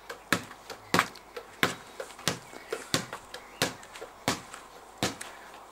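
A steady series of sharp taps or knocks, about three a second.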